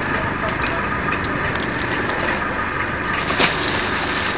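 A fishing boat's engine running steadily under a constant crackle of small clicks, with one sharp knock about three and a half seconds in.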